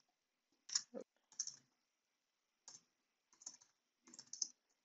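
Faint typing on a computer keyboard: scattered keystrokes in short clusters with pauses between them.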